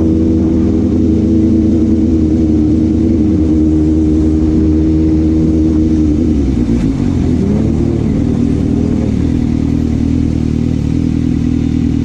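Inline-four sport motorcycle engine running at a steady note. About six seconds in the pitch drops and wavers as the bike slows, then it settles into a lower steady note.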